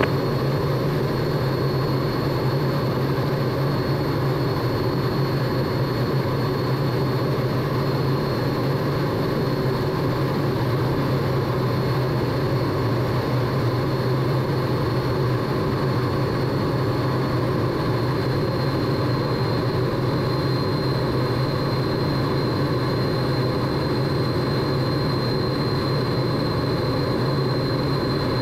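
Steady cockpit noise of a MiG-17's Klimov VK-1 turbojet and the rushing air around it, a deep, even rumble with a thin, high whine running over it.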